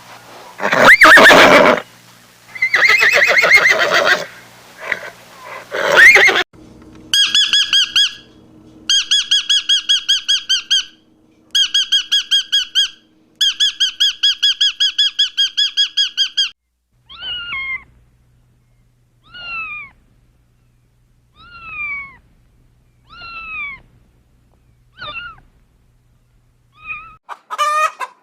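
A run of different animal calls, one after another. Loud, harsh squealing calls come first. Then rapid trilled chirping in several bursts, then short squeaky calls that fall in pitch, about one every two seconds.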